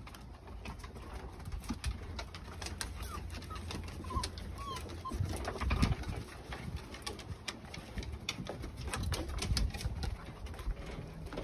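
Puppy and dog claws clicking and scrabbling on wooden deck boards during play. A few short high squeaks come around the middle, and there is a louder thump shortly after.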